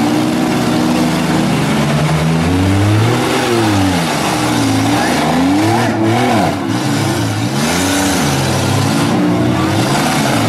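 Several demolition-derby minivan engines revving hard, the pitch rising and falling over and over, as the jammed-together vans push against each other.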